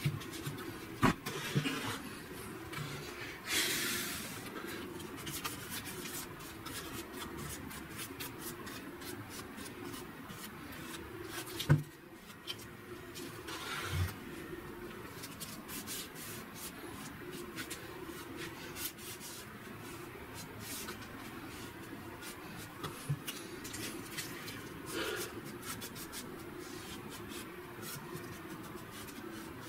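Gloved hands rubbing and working over a white-painted wooden step stool, with scattered light clicks and a few knocks of the wood against the workbench; one sharp knock near the middle as the stool is turned over.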